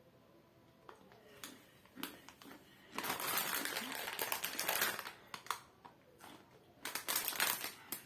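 Foil snack bag of Takis crinkling and rustling as it is handled to get at the last crumbs, in a dense stretch about three seconds in and again near the end, with a few single clicks in between.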